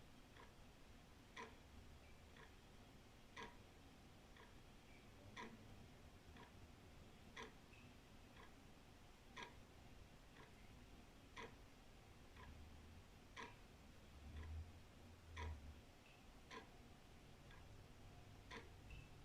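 Old wall clock ticking faintly and evenly, about one tick a second, the beats alternating stronger and weaker in a tick-tock.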